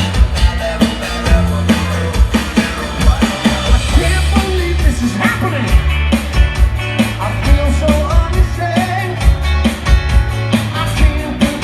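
Rock band playing, with a drum kit keeping a steady beat under bass and a voice singing.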